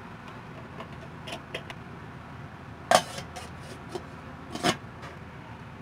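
An electric rice cooker's metal pot and stainless lid being handled and shut: a few light clicks, then a sharp metal knock about three seconds in and a second knock about a second and a half later.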